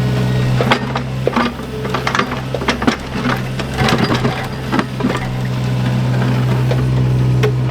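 Diesel engine of a compact digging machine running steadily, with irregular sharp clanks and knocks over it.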